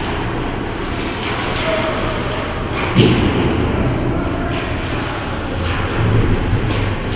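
Ice rink ambience during a hockey game: a steady din of play from the far end with distant voices, and one sharp knock about three seconds in.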